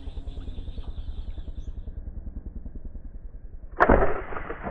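A single-rubber-band speargun firing at a fish about four seconds in: one sharp crack with a short noisy tail. Before it, a steady, fast, low pulsing runs in the background.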